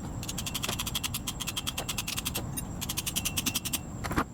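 Two runs of rapid, even clicking, about a dozen clicks a second, from a hand tool being worked on a stuck drum-brake wheel cylinder to push its pistons out.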